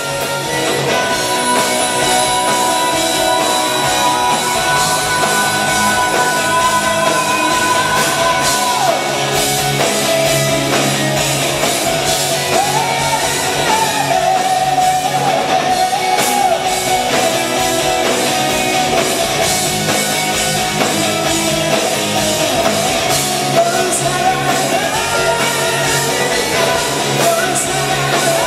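A live rock band playing loudly, with a lead singer over electric guitar, bass and drums.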